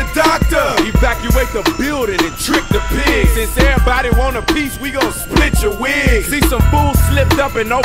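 Hip hop music: vocals over a heavy bass beat.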